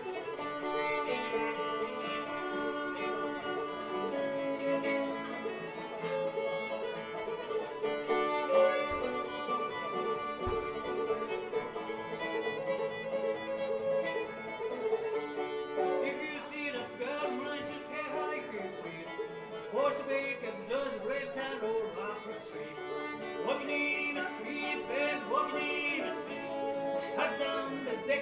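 Old-time string band playing live, a fiddle carrying a steady melody over plucked banjo.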